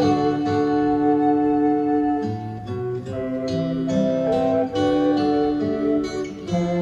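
Recorded instrumental music played back over Coherent Audio Model Twelve Neo Signature loudspeakers: a melody of held notes that change every second or so.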